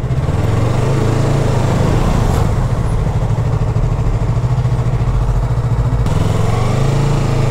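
Motorcycle engine running at low road speed, its note rising and easing off twice as the rider opens and closes the throttle.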